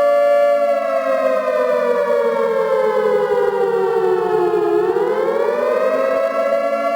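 Civil defence warning siren sounding a loud tone that holds steady, then slides slowly down in pitch for about four seconds and rises back up to the steady tone near the end.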